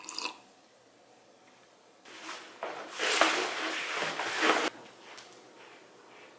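A roll of wallpaper being unrolled and pressed flat on a table: paper rustling and crackling. It starts about two seconds in, grows louder and stops abruptly near the end.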